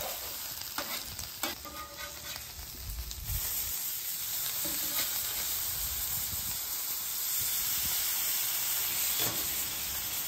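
Steaks and diced chorizo potatoes sizzling on a hot flat-top griddle, with a few spatula clicks and scrapes in the first few seconds. The sizzle gets louder about three seconds in, as the steaks are flipped onto their raw side, and then holds steady.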